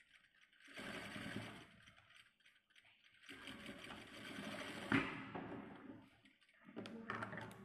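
Sewing machine running in three short bursts as it stitches cloth, the longest lasting about three seconds, with brief stops between them while the fabric is repositioned.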